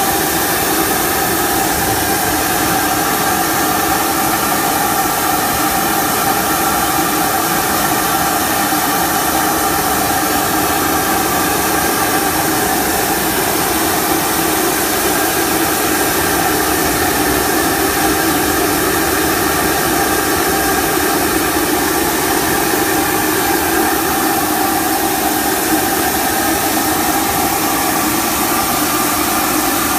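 Industrial machine running steadily: a loud, even hiss with several steady humming tones that never change.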